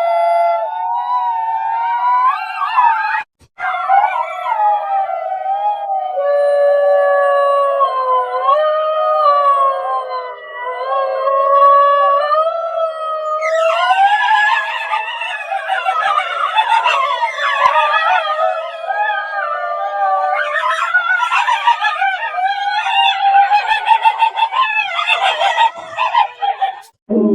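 Wolves howling: long, slowly wavering howls, then from about halfway several howls overlapping in a chorus that cuts off suddenly near the end.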